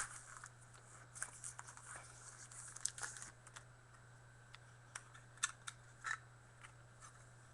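Hard plastic one-touch trading-card holders being handled as cards are fitted into them: light rustling and scattered small clicks, with a few sharper clicks about five to six seconds in.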